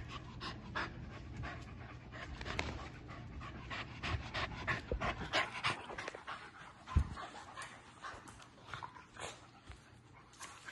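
A dog panting in quick breaths while playing, with one soft thump about seven seconds in.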